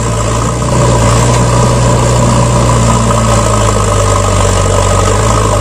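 Truck engine idling steadily, a loud unchanging low hum.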